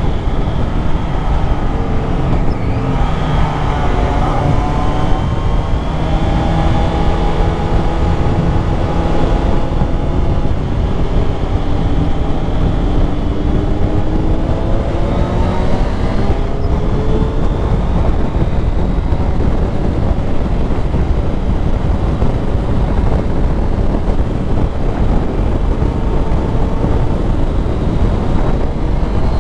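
Motorcycle engine at speed under heavy wind noise, its pitch climbing steadily as the bike accelerates from a few seconds in to about seventeen seconds in, then running at a steady pitch.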